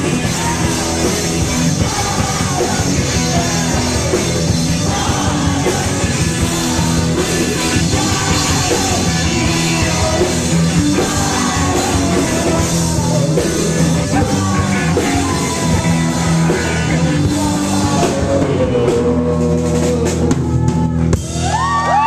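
Live rock band playing: drum kit, guitar and a sung lead vocal, loud and continuous.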